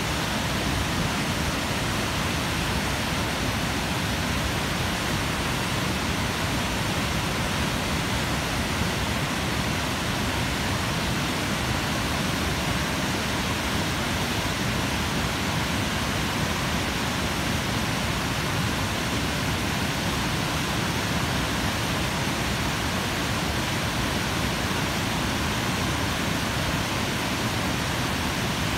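Water pouring over a curved concrete dam spillway and falling into the river below: a steady, unchanging rush.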